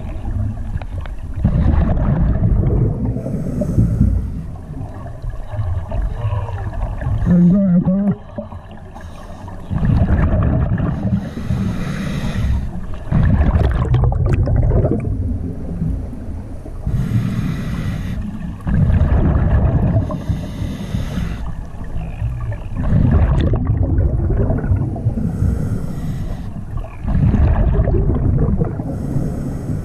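Scuba diver breathing through a regulator underwater: a hiss on each inhale and a loud bubbling rumble on each exhale, repeating about every five to six seconds.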